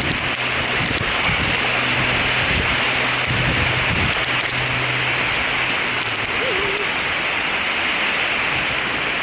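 Steady rain falling on jungle foliage, a dense even hiss.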